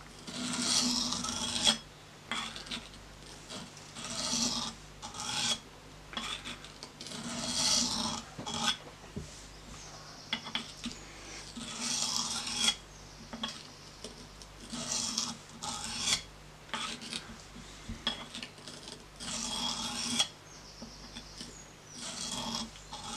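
Knife blade drawn along the coarse side of a bench sharpening stone in repeated strokes, a gritty rasping scrape about every two seconds as the bevel is ground.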